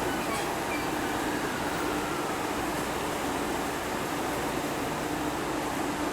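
683-series electric train at a station platform: a steady hum and rush of its running equipment, with a faint whine that falls in pitch over the first few seconds.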